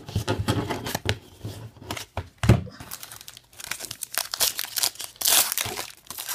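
A trading-card pack's wrapper being crinkled and torn open, with many small crackles, a dull thump about two and a half seconds in, and a louder rip about five seconds in.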